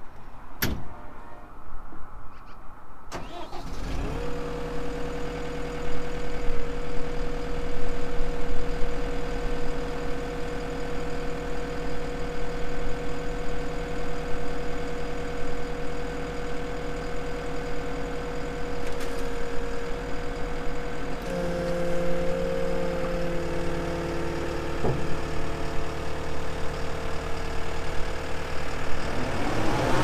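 A couple of sharp knocks, then the Cat 265 compact track loader's diesel engine cranks and starts about four seconds in and idles steadily. About two-thirds of the way through the engine note steps up, and near the end it revs higher as the loader arms are raised.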